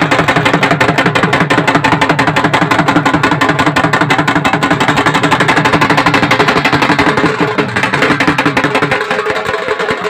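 Barrel drums beaten in a fast, steady folk rhythm, with a held melodic line above the beat. This is the live accompaniment to a Bundelkhandi Diwari stick dance.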